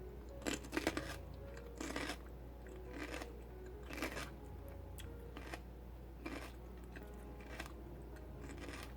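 Raw celery stalks chewed with crisp, crunchy bites, irregular crunches about once a second, loudest in the first second.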